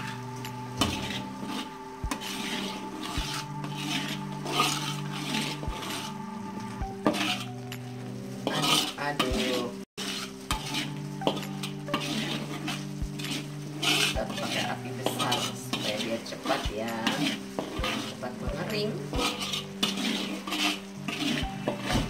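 A metal spatula scraping and tapping against a wok, stirring a thick chili spice paste that sizzles on high heat as it cooks dry before oil goes in. A steady low hum runs underneath, and the sound cuts out for an instant about ten seconds in.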